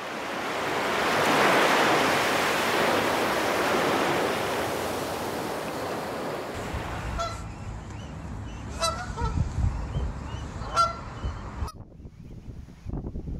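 Surf washing onto a sandy beach for the first six seconds or so. Then Canada geese honk three times, about two seconds apart, over a low rumble of wind on the microphone.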